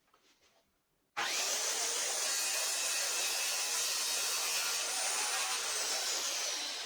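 Electric jigsaw cutting through wood: a steady, loud sawing noise with a motor whine that starts abruptly about a second in and eases slightly near the end.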